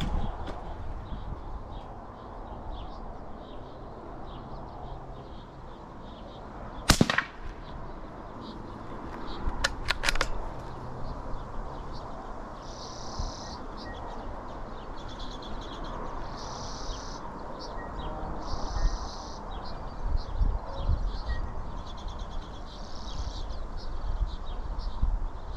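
A single shot from a Ruger bolt-action .22LR rifle, sharp and brief with a short tail, about a quarter of the way in. About three seconds later come a few quick metallic clicks of the bolt being worked to chamber the next round.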